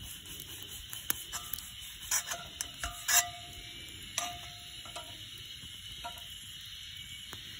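Wood campfire crackling with sharp irregular pops, the loudest about three seconds in, over a steady high insect drone. A few short whistling tones come and go between about one and five seconds in.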